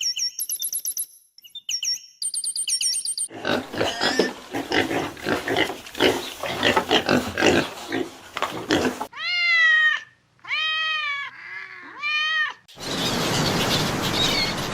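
Different animal calls one after another: rapid high-pitched chirps, then several seconds of rough, grunting sounds, then three calls that each rise and fall in pitch, then a steady buzzing hiss near the end.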